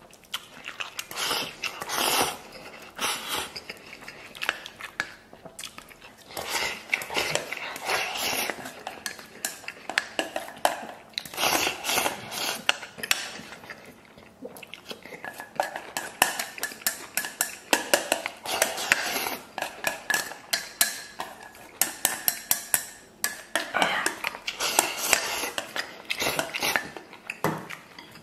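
Wooden chopsticks scraping and clicking against a stainless steel basin as rice is shoveled into the mouth, in repeated bursts of quick clicks, with chewing between.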